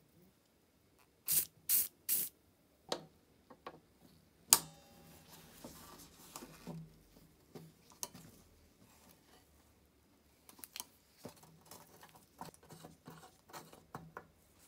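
Three quick short hissing bursts, then clicks, taps and small metallic clinks of tools and parts being handled while a rusty camping stove is taken apart, with locking pliers working a brass fitting; one sharp click about four and a half seconds in is the loudest sound.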